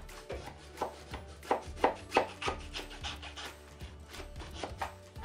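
Knife sawing through the skin and flesh of a baked spaghetti squash in repeated short strokes, about three a second, with a brief pause around four seconds in.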